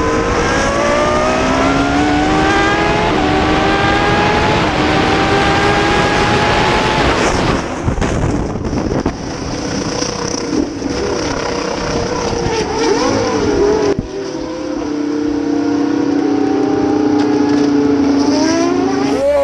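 Racing car engines at speed on track. For the first several seconds the pitch climbs steadily under acceleration. After a break about eight seconds in, the engines run at a steadier pitch, climbing again near the end.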